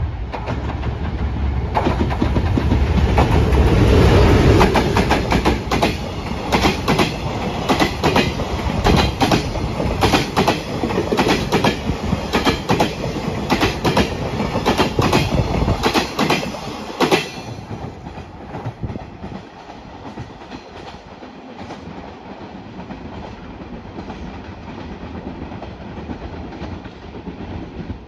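Freight train hauled by an EF510 electric locomotive passing at speed. The rumble grows loud as the locomotive goes by about four seconds in. Then comes a rapid clickety-clack of the wagons' wheels over the rail joints, which stops suddenly a little past halfway as the last wagon passes, leaving a fading rumble.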